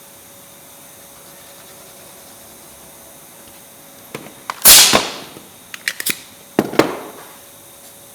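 Pneumatic brad gun firing twice into MDF, two sharp shots about two seconds apart, the first the louder, with a few small clicks between them.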